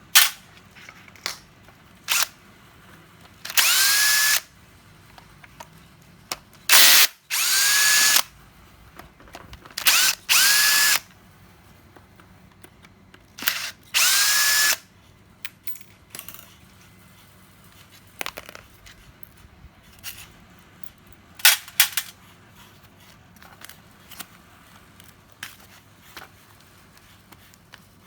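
Cordless power tool motor run in several short bursts of about a second each, every burst starting with a rising whine that settles to a steady pitch; light clicks and handling noises between and after.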